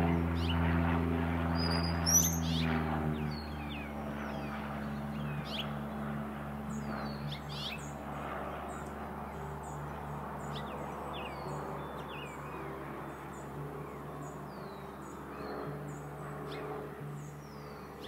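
Droning of a propeller airplane, loudest at the start and fading away over the first three seconds. Then small birds chirp over a steady low hum: short, high notes that slide downward and repeat again and again.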